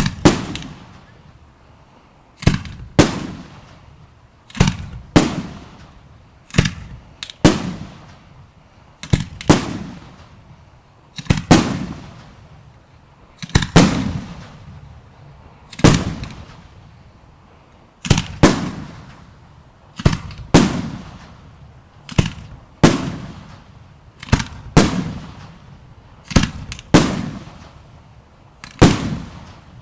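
Aerial firework shells exploding in a steady barrage, a sharp bang every second or two, often two in quick succession, each followed by a rolling echo.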